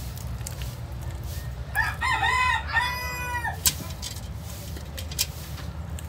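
A rooster crows once, about two seconds in, for under two seconds, over a steady low hum.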